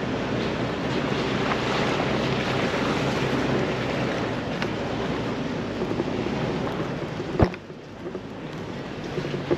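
Jeep Wrangler TJ driving on a rocky off-road trail: a steady rushing noise of engine, tyres and wind on the microphone. A single sharp knock comes about seven seconds in; after it the noise is quieter, with scattered small clicks.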